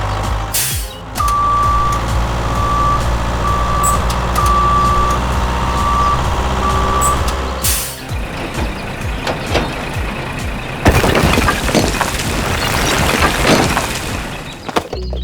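A heavy vehicle's engine drones steadily while a reversing alarm beeps six times, with a short air-brake hiss just before the beeping and another as it ends. In the second half the engine gives way to a rough scraping, rattling noise full of small clicks, which is busiest a few seconds before the end.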